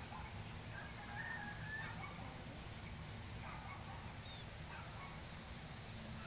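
Faint, scattered calls of chickens over a steady high hiss of outdoor background.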